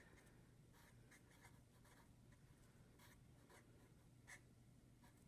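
Faint scratching of a black marker writing on paper, a run of short strokes with the clearest one about four seconds in.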